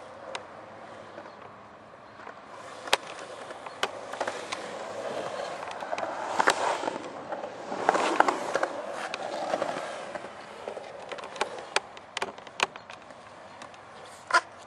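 Skateboard wheels rolling on the concrete of a skatepark bowl, with a rumble that swells and fades in the middle. Sharp clacks of the board striking the concrete come now and then, several in the last few seconds.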